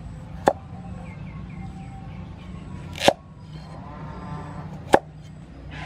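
Cleaver chopping through carrot onto a round wooden chopping board: three sharp chops, a couple of seconds apart.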